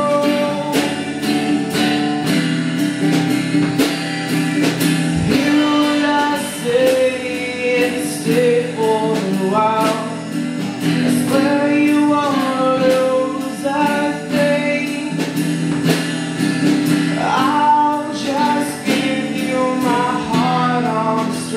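Acoustic guitar strummed steadily, about two strums a second, with a voice singing a melody over it.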